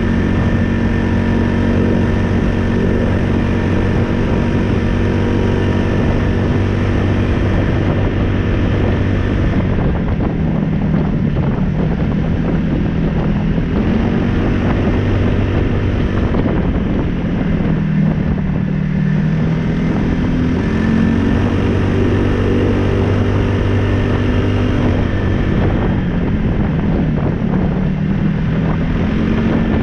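A 2015 Polaris Ace 570 SP's single-cylinder engine runs under way on a dirt road. Its pitch drops twice as the machine slows, then rises again as it picks up speed.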